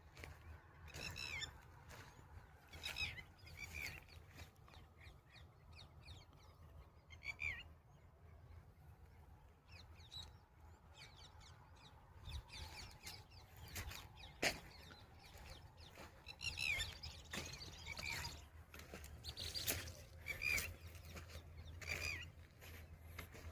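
Small birds chirping over and over, short falling calls every second or two, with a few sharp clicks and a steady low rumble underneath.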